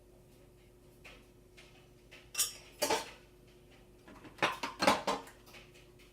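Dishes and cutlery clattering and clinking against each other: a couple of sharp clinks about two and a half to three seconds in, then a quicker cluster of clatters near five seconds.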